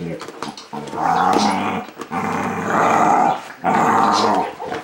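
Two dogs play-fighting, a Staffordshire bull terrier and a springer spaniel–border collie cross, growling in several long runs, one after another with short breaks between.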